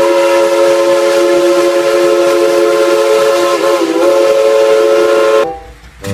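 Steam locomotive whistle, built up as Thomas the Tank Engine, blowing one long chord of several notes. The pitch sags briefly and recovers near the end, then the whistle cuts off suddenly about five and a half seconds in.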